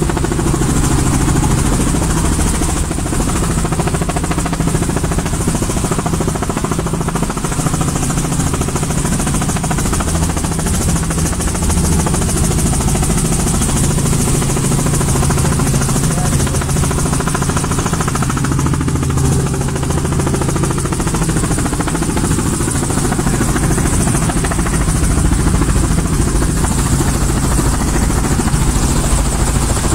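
Helicopter engine and rotors running steadily with a strong low hum, no let-up in level.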